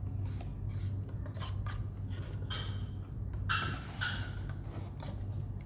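Plastic spoon scraping and clicking inside a small paper cup as food is scooped out, a string of short scrapes over a steady low hum.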